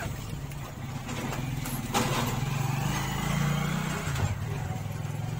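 A motor engine running steadily, growing louder toward the middle and dropping in pitch a little past four seconds in, with a sharp click about two seconds in.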